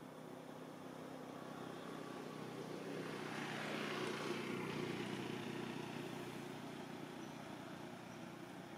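A motor vehicle's engine passes by, growing louder to a peak about four seconds in and then fading away.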